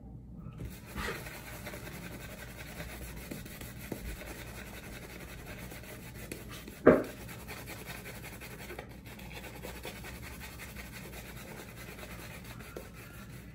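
Badger shaving brush scrubbing shaving-soap lather into a full beard, a steady scratchy rubbing of bristles on whiskers and skin. One brief sharp knock about halfway through stands out above it.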